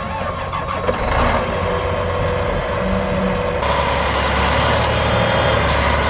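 Heavy John Deere tractor diesel engines under load as a wheeled tractor tugs a stuck 9560RT track tractor out of deep mud on a tow rope. The engines get louder about a second in and again, fuller, about three and a half seconds in.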